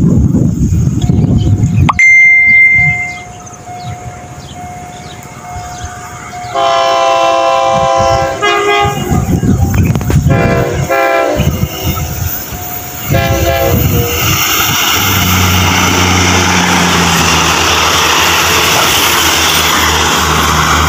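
Diesel train's horn sounding one long blast, then several shorter blasts, as the train approaches. About two-thirds of the way in, the steady engine hum and wheel noise of the diesel railcars passing close by take over. Low wind rumble on the microphone at the start.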